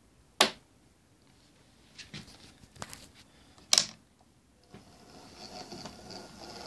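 A few sharp clicks, two of them loud, then from about five seconds in the steady whir of an N gauge tank locomotive's small electric motor with a faint high whine as it runs slowly onto a three-way point.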